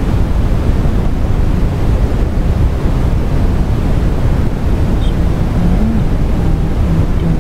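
Steady low rumbling noise, strongest in the bass, with no distinct events.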